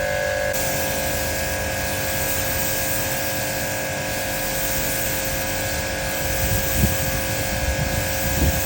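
High-pressure washer running, a steady whine over a broad hiss, with a few low bumps near the end.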